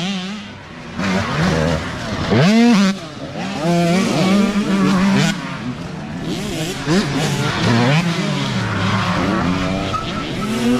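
Youth dirt bike engines revving as several bikes ride past on a dirt trail, the engine pitch rising and falling again and again with the throttle, with a sharp rising rev about two and a half seconds in.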